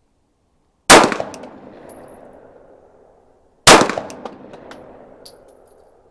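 Two shots from a CZ P-10F 9mm pistol firing 115-grain FMJ rounds in slow timed fire, about three seconds apart, each ringing out into a long fading echo.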